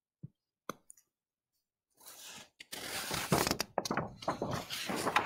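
A couple of faint taps, then from about two seconds in a loud, irregular rustling and scraping noise.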